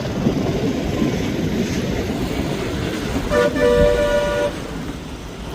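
A vehicle horn honks about three and a half seconds in, a short blip and then a steady note held for about a second, over a continuous low rumbling noise.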